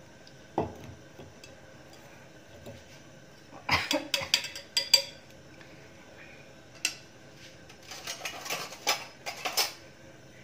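Sharp metallic clicks and light clinks at a gas hob with an empty metal kadhai on the grate, in two short clusters about four seconds in and again near the end, with a few single clicks between, as the burner is being lit.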